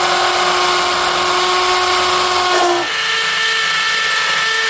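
Power drill running with a steady whine; about three seconds in it dips briefly and comes back at a slightly higher pitch.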